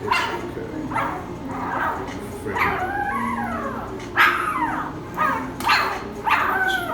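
Two-week-old American Bully puppy crying: a string of high squeals that each slide down in pitch, about one a second, with a longer wavering cry around three seconds in.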